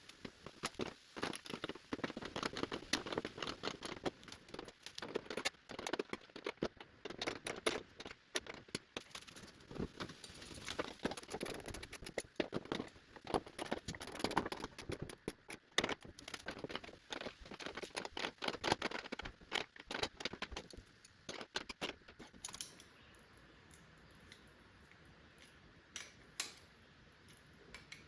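Small metal parts clinking and jangling as they are handled: a dense, irregular rattle of clicks for most of the stretch, thinning out to a few scattered clicks near the end.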